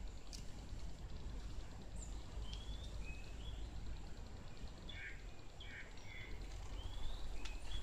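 Outdoor ambience: a steady low rumble with short, rising bird chirps scattered every second or so from about two seconds in.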